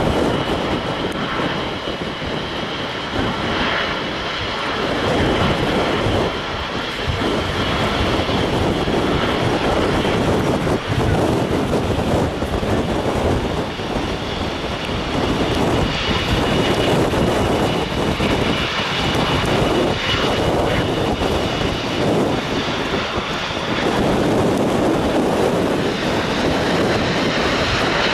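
Jet airliner engines running with a steady, loud rush and a faint high whine, swelling and easing over the seconds, with wind buffeting the microphone.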